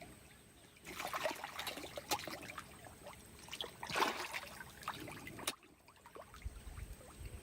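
Water splashing and slapping at the surface as feeding fish lunge at food. The crackling splashes go on for about four and a half seconds, loudest near the middle, and stop abruptly. A low rumble follows near the end.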